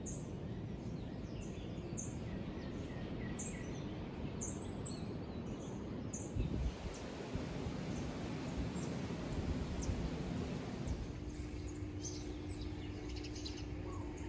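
Birds chirping outdoors among garden trees: short high chirps about once a second, then more scattered calls, over a steady low background rumble. A faint steady hum comes in near the end.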